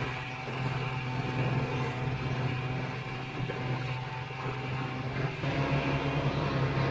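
Vintage Ski-Doo snowmobile's two-stroke engine running at a steady speed while the sled travels, heard from the rider's seat.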